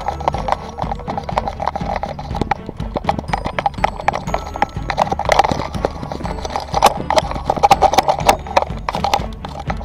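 Rapid, irregular clatter of knocks and rattles from an Apeman A77 action camera strapped to a small trotting dog, jolted with each stride, over a low rumble of handling noise.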